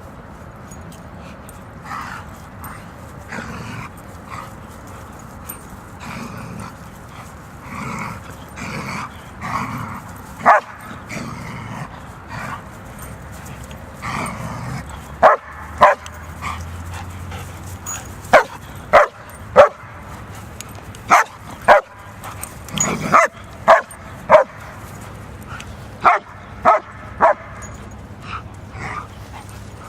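A dog whining and whimpering, then barking from about ten seconds in: short, sharp barks, mostly in twos and threes, with short pauses between the groups.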